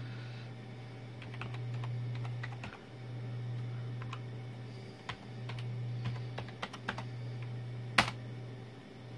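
Keystrokes on a computer keyboard, tapped out in short uneven runs as a username and password are entered, with one louder click about eight seconds in. A steady low hum swells and fades underneath.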